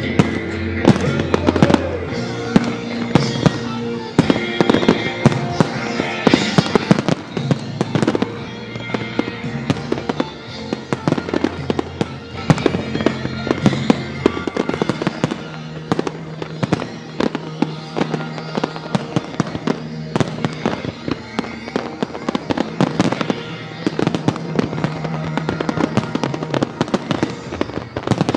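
Fireworks display: a dense, continuous run of shells bursting, with sharp bangs and crackling, over music playing with held notes.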